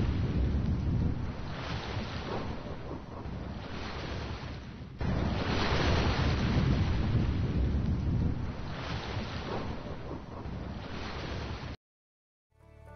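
Ocean surf: a steady wash of waves swelling and easing, with an abrupt cut about five seconds in. It stops suddenly near the end, and after a short gap music begins.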